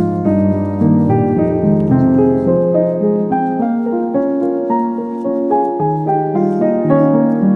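Background piano music: a steady flow of melodic notes.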